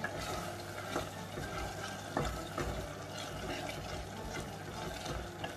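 Wooden spoon stirring wet lamb mince in an open pressure cooker, the mince simmering and bubbling as its cooking water boils off, with a few light knocks of the spoon against the pot.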